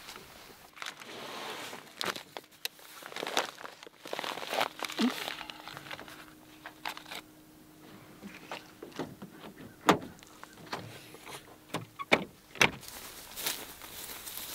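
Hunting gear being handled and unloaded at a pickup truck: scattered clicks, knocks and rustling, with one sharp knock about ten seconds in.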